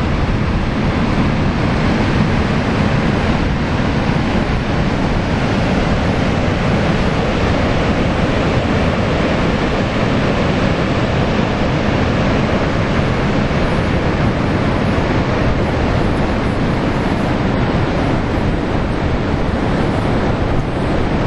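Ocean surf breaking along the beach, a steady rushing noise, with wind rumbling on the microphone.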